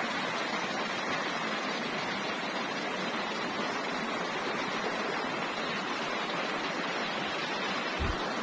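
Steady rush of a fast, muddy river running high over rocks, with a brief low thump near the end.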